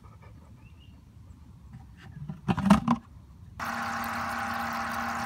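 A small air pump aerating a bucket of water, humming steadily with bubbling, coming in abruptly about three and a half seconds in. Just before it there is a brief knock of the plastic bucket lid being handled.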